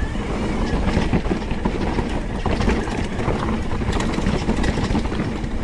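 Mountain bike ridden fast down a dirt trail: wind rushing over the microphone with tyres rolling on rough ground and many quick clicks and rattles from the bike.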